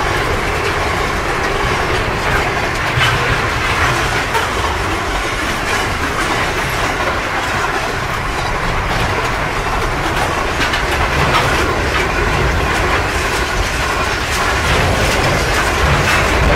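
Freight train container wagons rolling past close by: steel wheels on the rails make a steady rumble, with many faint clicks from the wheels running over the track.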